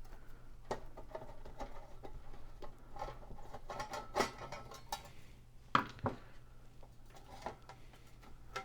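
Light metallic clicks and clinks from handling the sheet-metal case of an AT computer power supply as it is opened, with two sharper clicks a little after halfway. A low steady hum runs underneath.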